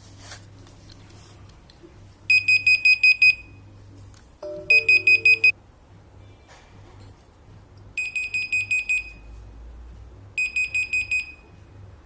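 WP6 alarm system sounding its alarm in bursts of rapid high beeps, about seven beeps a second, four bursts a couple of seconds apart: the alarm set off by door sensor 1 being opened.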